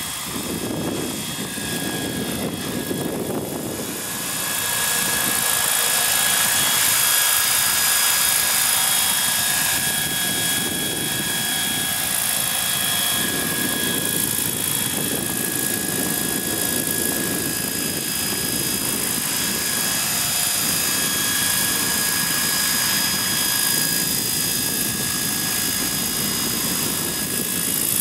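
Hurricane 550 radio-controlled model helicopter in flight, its rotor and drive running with a steady whine. The sound gets louder about four seconds in and then holds even.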